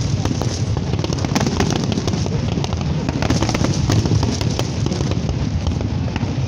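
Fireworks display at full intensity: many shells bursting without a break, a continuous low rumble of booms under dense, rapid crackling.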